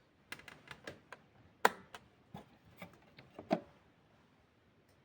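A dozen or so light clicks and taps at an uneven pace, two of them louder, stopping about three and a half seconds in.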